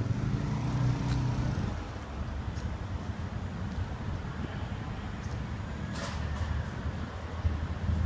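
City street traffic: a vehicle engine rumbling close by for the first couple of seconds, then steady low traffic rumble.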